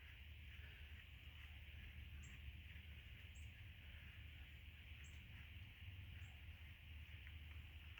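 Near silence: a faint steady low hum and hiss, with a handful of short, high chirps scattered through it.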